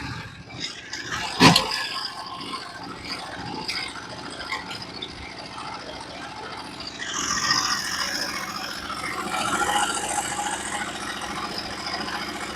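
Portable sawmill's engine running steadily just after starting, with one sharp clunk about 1.5 s in and a louder, hissier stretch of machinery noise from about 7 s.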